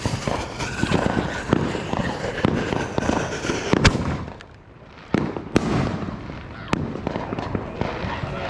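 Fireworks going off: a dense run of crackling pops for the first few seconds, a single loud bang about four seconds in, a brief lull, then more scattered bangs.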